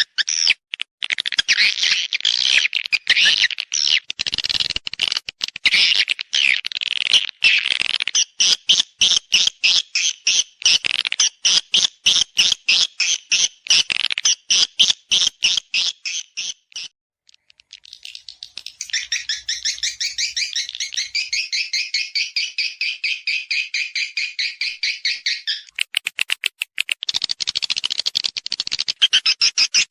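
Swiftlet lure call: rapid, evenly repeated high chirps of swiftlets, the mating call played to draw swiftlets to nest. It breaks off briefly a little past halfway, returns as a denser, steadier twitter, and near the end a short burst of quick clicks comes before the chirping resumes.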